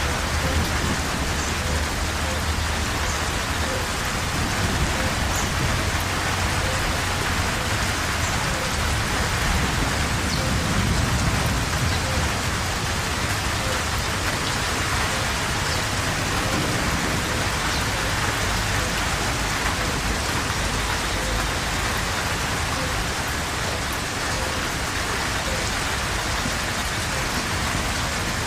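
Steady heavy rain pouring down, an even hiss of countless drops, with a low rumble swelling briefly about ten seconds in.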